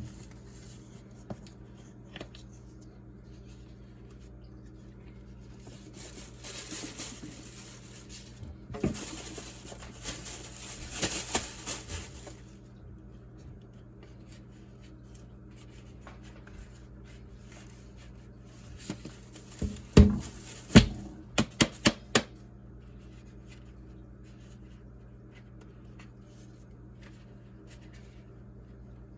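Hands working packed dust and debris out of a vacuum cleaner's dirt compartment: rustling and scraping for several seconds, then a quick run of sharp plastic knocks and clicks. A faint steady low hum lies underneath.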